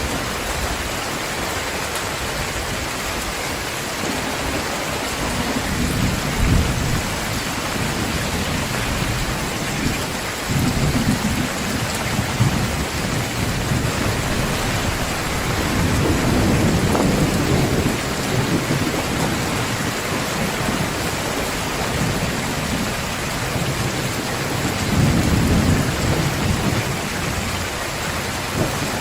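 Heavy rain pouring steadily, with low rolls of thunder rumbling in and out several times.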